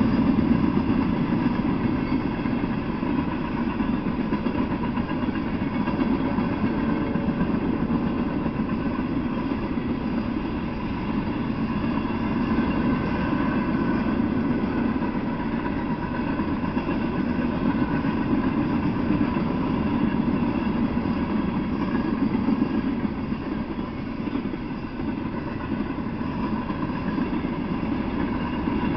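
A freight train of loaded coal hopper cars rolling past, a steady rumble of steel wheels on the rails with a faint steady whine above it.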